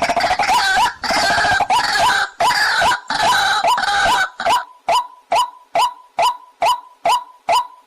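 Waterhen calling: a harsh chorus of overlapping croaking calls, which gives way about four seconds in to a single sharp call repeated about two and a half times a second.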